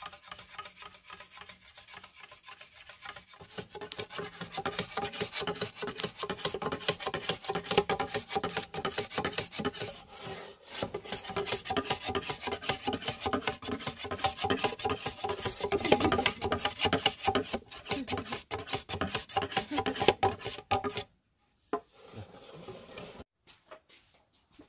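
A hand tool rasping or scraping on wood with rapid, continuous strokes. It starts about three seconds in, pauses briefly about ten seconds in, and stops abruptly a few seconds before the end.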